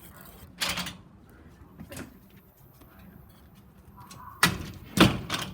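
Short bursts of rustling and handling noise as small toys and their packaging are moved about: four brief scrapes or rustles, the last two, near the end, the loudest.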